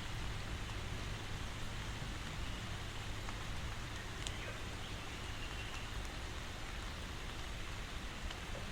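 Steady rain falling: a dense, even hiss, with a few separate drop ticks standing out, one of them about four seconds in.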